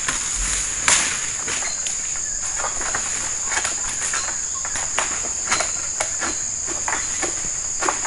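Steady high-pitched drone of insects, with scattered short rustles and crackles from the harvester's footsteps and his long harvesting pole moving among palm fronds and undergrowth; the sharpest crackle comes about a second in.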